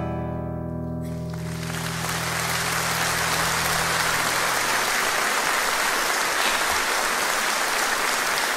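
Final chord of a nylon-string classical guitar ringing out and fading away, while audience applause starts about a second in and swells into steady clapping that carries on after the guitar has died away.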